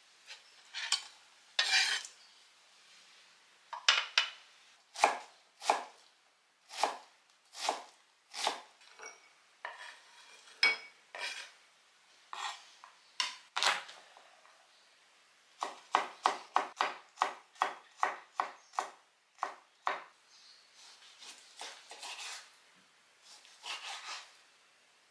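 Chef's knife chopping food on a wooden cutting board: separate sharp knocks of the blade striking the board, irregularly spaced, with a quicker run of about three to four strokes a second past the middle.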